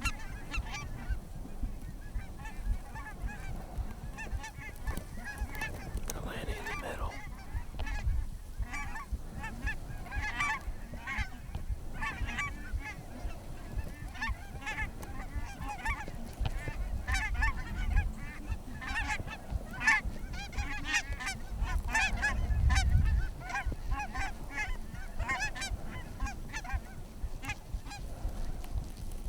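Geese honking over and over, many short calls overlapping as a flock works in. Low rumbles of wind on the microphone come about halfway through and again near three-quarters of the way.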